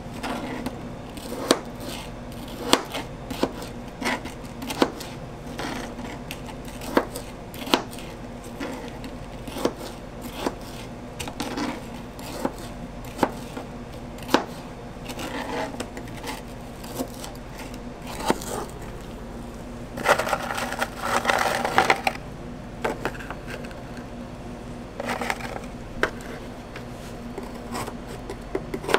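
Kitchen knife chopping mango and frozen strawberries on plastic cutting boards: sharp knocks of the blade on the board, irregular, about one a second. A short stretch of scraping noise comes a little past two-thirds of the way through, over a steady low hum.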